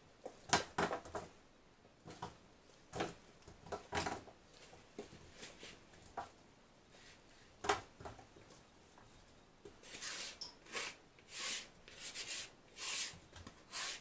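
Sliced apples being scraped out of a plastic mixing bowl with a spatula and dropping into a metal baking pan: irregular soft taps and clunks, then a quick run of about six scraping strokes near the end.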